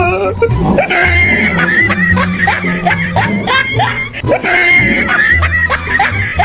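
Comedic background music with a steady low beat, overlaid with short rising high-pitched vocal squeals repeated about three times a second.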